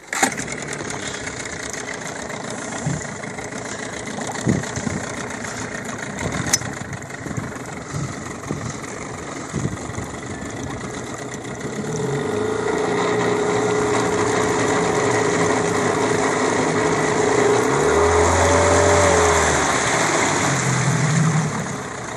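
HDX T9.8 BMS two-stroke 9.8 hp outboard motor catching right at the start and idling, with a few knocks in the first ten seconds. About halfway through it is throttled up and runs louder and steadier as the boat moves off, loudest a little before the end, then eases back.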